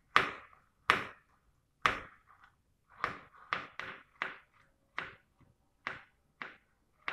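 Kitchen knife slicing garlic cloves thinly on a plastic cutting board: about ten sharp knocks of the blade on the board, about one a second at first, then quicker.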